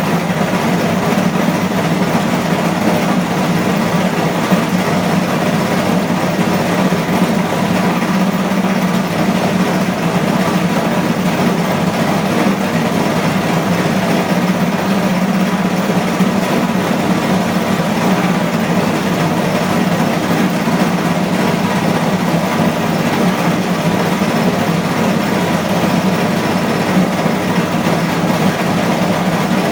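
Washing machine on its spin cycle, the drum turning at speed: a loud, steady hum under an even rushing noise, unchanging throughout.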